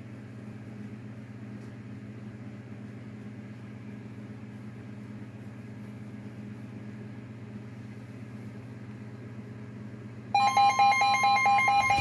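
A steady low hum, then about ten seconds in a loud electronic emergency weather alert tone starts suddenly, several steady pitches pulsing rapidly on and off.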